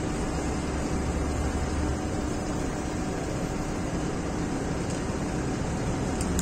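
Steady street traffic noise with a low engine rumble underneath.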